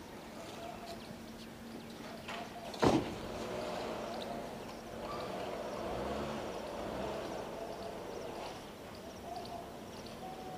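Faint background room noise with a low steady hum, broken by one sharp click or knock about three seconds in.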